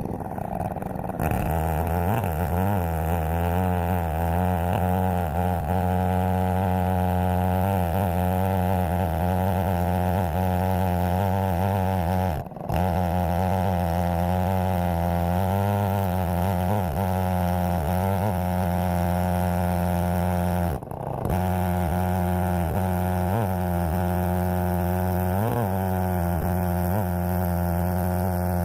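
Holzfforma Stihl 070-clone chainsaw, fitted with a 36-inch bar, running steadily under load while ripping a cherry log in an Alaskan mill. It starts suddenly and dips briefly twice.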